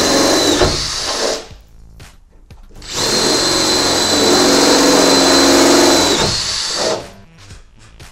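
Makita 18 V cordless drill drilling 8 mm holes through a van's metal door panel: one run stops about a second in, then after a short pause a second run of about four seconds, the motor's whine dipping briefly near the end of each.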